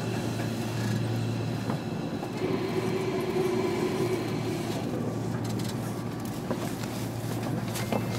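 Running sound heard inside a JR Kyushu 305 series electric train (car MoHa 305-101): a steady hum with steady electrical tones from its inverter drive and rail noise, the tones shifting about two and a half seconds in.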